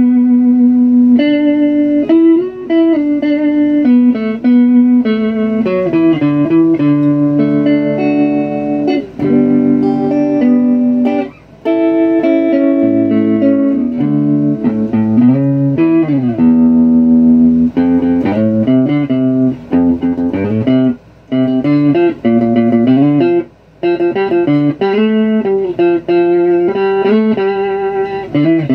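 Electric guitar played through a 1956 Guild amplifier, the amp's first sound, picking a melody of single notes with some chords and a few brief pauses.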